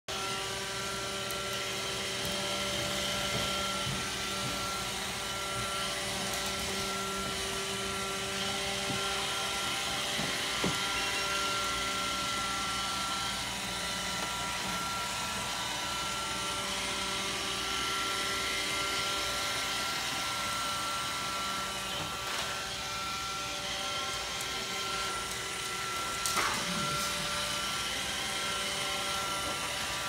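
Roomba robot vacuum running on a hardwood floor: a steady motor and brush whine made of several constant tones, with a couple of brief knocks.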